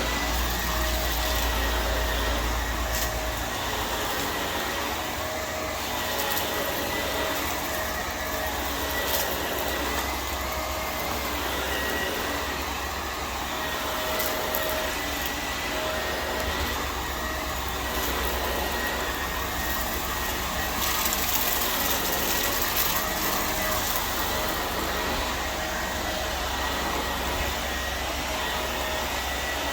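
Vacuum cleaner running steadily, with a thin high whine from its motor over the rushing air.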